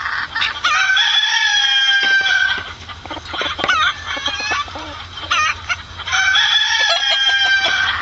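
A rooster crows twice, each crow about two seconds long, one near the start and one near the end. Short chicken clucks and calls come in between.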